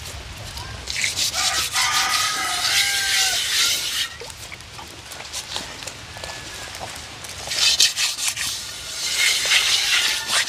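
Harsh rasping scrape of something being rubbed, in two spells of about three seconds each with a quieter pause between.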